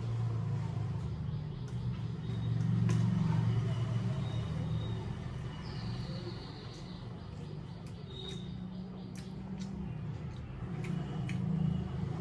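A steady low rumble, swelling about three seconds in and again near the end, with scattered faint clicks.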